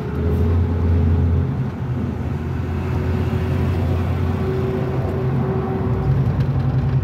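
A car driving at highway speed, heard from inside the cabin: a steady low drone of engine and road noise.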